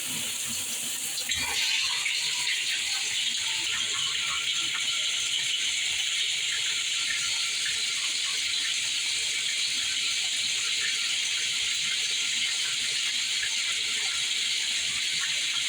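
Mainstays 6-setting plastic showerhead spraying water in a steady hiss. The spray gets a little louder about a second and a half in.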